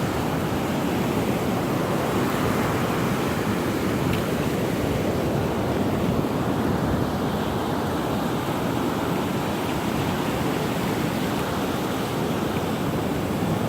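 Surf breaking on a beach, a steady rush of waves, with wind on the microphone.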